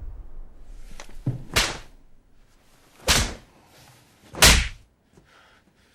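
Film sound effects of blows landing on a person: three heavy hits about a second and a half apart, the last the loudest, with a fainter one just before the first.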